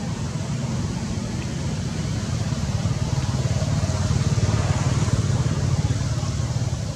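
A steady low rumbling noise with a faint hiss above it, swelling slightly from about three seconds in and easing near the end.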